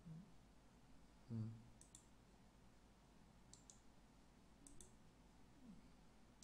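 Computer mouse clicking: three quick pairs of quiet clicks, with another near the end, over near-silent room tone. A short low sound from a voice comes about a second and a half in.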